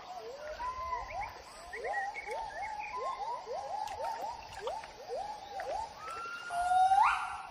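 Gibbons singing: a fast run of short rising whoops, about three a second, climaxing in one louder, long rising call near the end.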